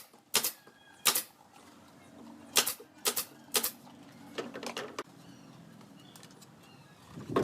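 A series of sharp knocks, about six in the first four seconds and irregularly spaced, followed by a run of lighter ticks.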